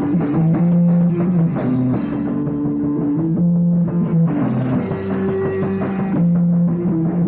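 Live rock band playing an instrumental passage on guitar and drum kit, with held low chord notes changing every second or so.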